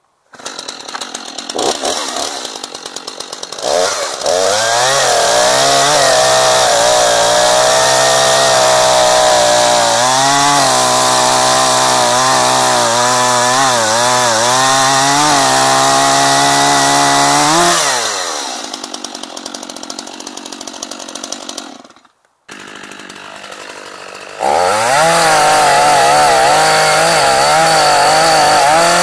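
Stihl MS 251 two-stroke chainsaw idling briefly, then revving to full throttle and cutting through a log, its pitch wavering under load, before dropping back to idle. After a short break it idles again and revs up into another cut near the end.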